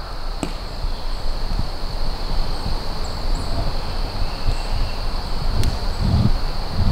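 Summer forest ambience: a steady high-pitched insect drone, with low wind rumble on the microphone and a couple of low thumps near the end.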